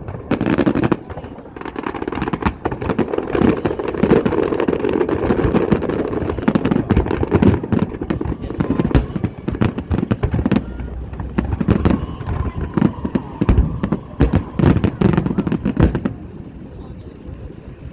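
Aerial fireworks bursting in quick succession, dense sharp bangs and crackling, easing off about sixteen seconds in.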